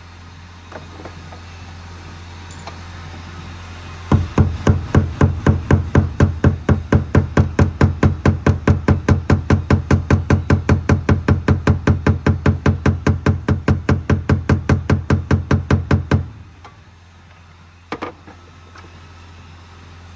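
Fast, very even knocking, about five blows a second, like rapid hammer taps, starting about four seconds in, lasting about twelve seconds and stopping abruptly, with one more knock near the end. A steady low hum runs underneath.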